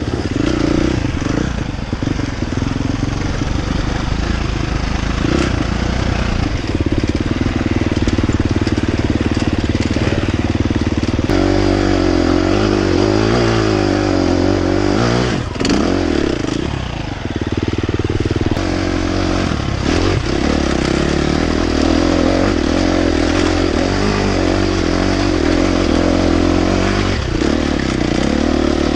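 Husqvarna dirt bike engine running under throttle as it is ridden along a trail, its pitch rising and falling with the revs.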